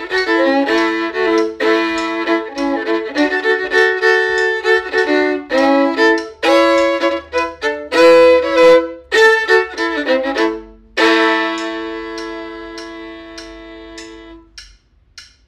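Solo fiddle playing a simple newgrass tune in A major, often with two strings sounding together. About eleven seconds in it ends on a long held chord that fades out.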